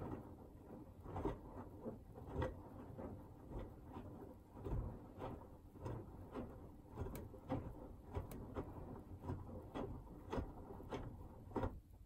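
Hoover Axi front-loading washing machine's drum turning slowly through its load-sensing phase, with wet laundry and water sloshing and dropping in the drum in soft, uneven knocks about once or twice a second over a low motor rumble. The drum stops near the end.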